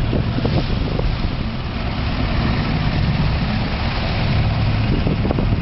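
Motorboat engine running steadily under way: a constant low rumble under a steady rush of wind and water noise.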